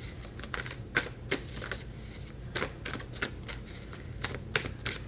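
A deck of tarot cards being shuffled and handled by hand: a run of irregular short snaps and slaps, a few a second.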